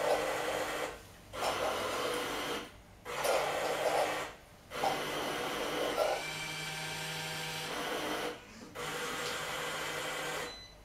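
Carimali Armonia automatic coffee machine working through its start-up cycle after the espresso button is pressed. Its motors run in five bursts, each one to three seconds long, with short pauses between them, and a steady hum joins in during the longest burst.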